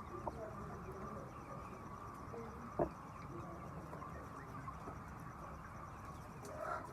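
A flock of chickens clucking softly over a steady background hum, with a sharp click about three seconds in.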